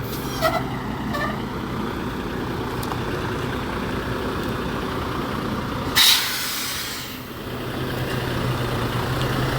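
2020 Volvo VNL semi truck's diesel engine idling steadily, with a short, loud hiss of released air from the air brakes about six seconds in.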